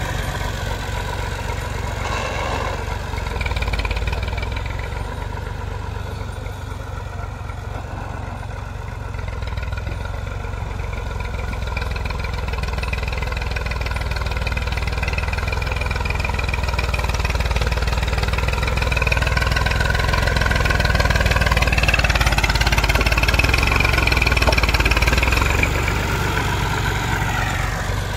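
Massey Ferguson 240 tractor's three-cylinder diesel engine working under load as its front blade pushes a heap of soil. The engine note climbs and gets louder about two-thirds of the way through, then drops back near the end.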